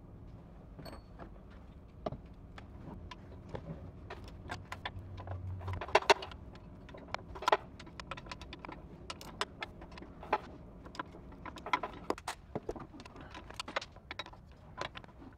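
Irregular light metallic clicks and clinks of bolts being fitted into a Cummins ISX15 water pump housing and turned with a ratcheting wrench.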